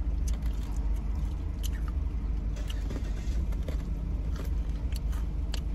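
Crunchy biting and chewing of fried pork rinds (chicharrones), a scatter of crisp crackles over a steady low hum.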